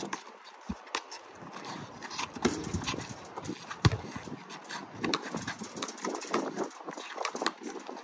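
A basketball bouncing on a concrete court during play, with sneaker footsteps and scuffs. It comes as sharp, irregular thumps, the loudest about four seconds in.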